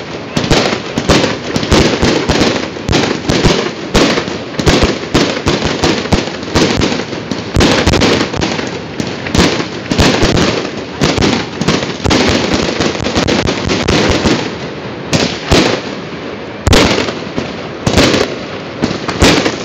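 Fireworks going off in a rapid, unbroken barrage of loud bangs and crackles, easing off briefly about three-quarters of the way through before picking up again.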